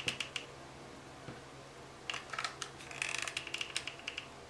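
Hot glue gun being worked over a cardboard-backed ice skate: quiet clicks and scrapes of the trigger and tip, a few at the start and a longer cluster from about two seconds in.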